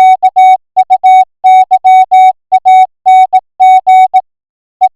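Morse code sent as a steady electronic tone of about 700 Hz, keyed on and off in short dots and longer dashes at about 10 words per minute, with a longer gap between characters a little past four seconds in.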